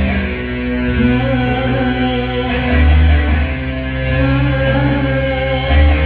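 Instrumental band music between sung verses, with guitar over a steady bass line.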